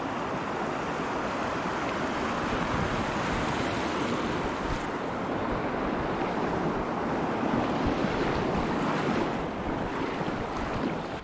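River whitewater rushing and splashing around the bow of an inflatable kayak as it runs a small grade-1 riffle: a steady, loud rush of water.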